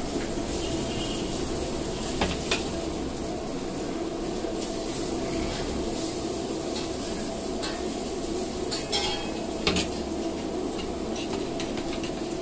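Metal spoon clinking against foil bowls and a steel tray as green chutney is spooned onto fuchka shells: a few sharp clinks, two around two seconds in and two more around nine to ten seconds, over a steady background hum.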